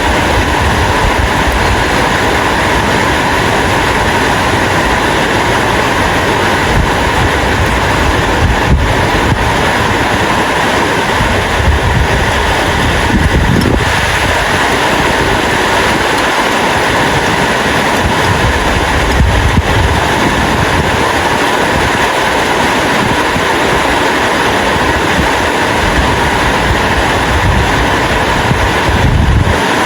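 Heavy rain falling steadily, a dense even hiss, with a low rumble underneath that swells a few times.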